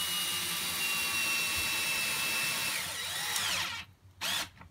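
Cordless drill driving the last screw of a metal corner bracket into a wooden gate: a steady motor whine that winds down and stops as the screw seats, followed by one short burst near the end.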